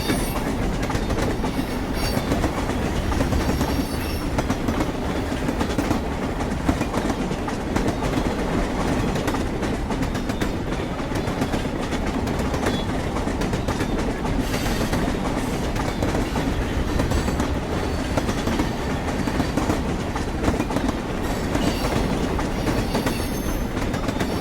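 Train wheels clanking and grinding on the rails, a steady running rumble packed with rapid clicks.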